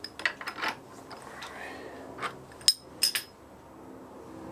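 Sharp metallic clinks and taps from a small steel workpiece and a machine vise being handled, a dozen or so separate knocks, the loudest pair about three seconds in, over a faint steady hum.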